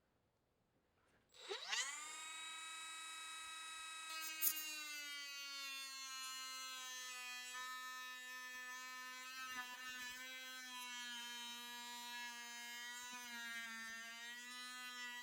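A small high-speed handheld power tool spins up about a second and a half in, its whine rising quickly to a steady pitch. About four seconds in, after a click, the pitch sags a little and the sound turns rougher as the tool takes load cutting the plastic bucket. It runs on steadily until it cuts off at the very end.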